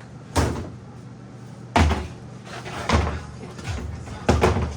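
A handful of sharp knocks and thumps, roughly a second apart, with two close together near the end.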